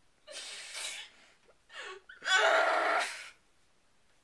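A young woman's strained, breathy crying noises: a gasping sob early on, a short whimper, then a loud drawn-out strained cry lasting about a second, which sounds constipated.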